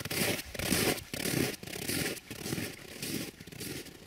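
Footsteps crunching in snow, a steady walking rhythm of about two steps a second.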